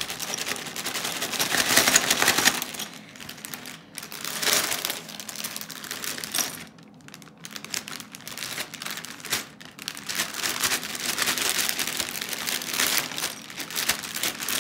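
Clear plastic bag of Lego bricks crinkling as it is shaken, the loose pieces rattling and clicking against each other inside, in several bursts with short pauses: bricks jammed in the bag's opening being shaken loose.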